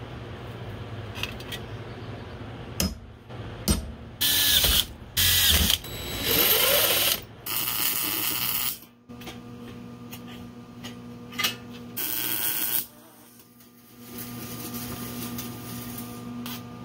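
MIG welder laying short tack welds on a steel fender bracket: five loud bursts of arc noise, each about a second long, with a steady low hum between them.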